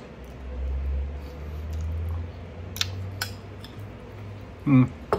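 A mouthful of cereal in milk being chewed, then a spoon clinking twice against the cereal bowl about three seconds in. A short hummed "mm" comes near the end.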